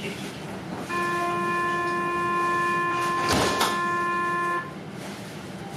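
Tram's warning horn sounding one steady, unwavering note for about three and a half seconds, starting about a second in, with a brief burst of noise over it partway through.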